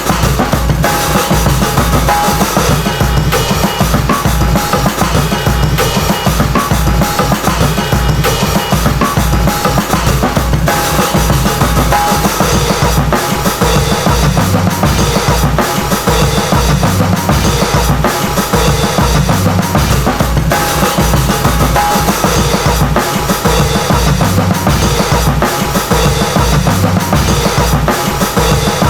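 Hip-hop instrumental track built on a drum-kit beat with kick drum and snare over a heavy bass line, the pattern looping steadily.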